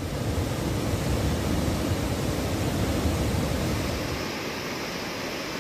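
Floodwater of the Gaula river rushing through the fully opened gates of a river barrage: a steady, loud rush with a heavy low rumble. About four seconds in, the low rumble drops away and a thinner rush carries on.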